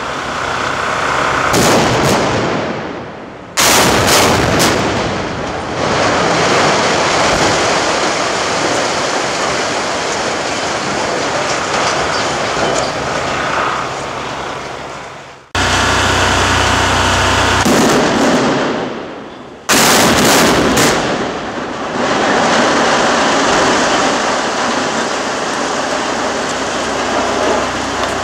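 Explosive felling of two structural steel power-station boilers: a quick run of sharp blasts from the cutting charges, then a sudden loud, sustained crashing din of the steel structures collapsing and debris coming down. After a sudden cut halfway through, the same blasts-then-collapse sequence is heard again.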